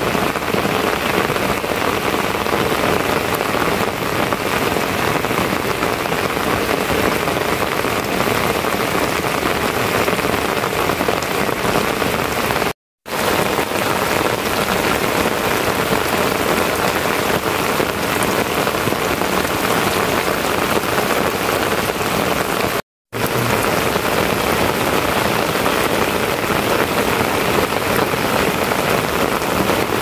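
Heavy, steady rain falling, an even hiss throughout, broken twice by a sudden dropout to dead silence lasting a fraction of a second.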